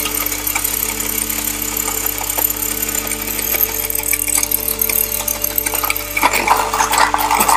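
Battery-operated 1980s Hong Kong Robot Moon Explorer toy robot running: its small electric motor whirs steadily while its badly damaged internal gears click and rattle, louder near the end.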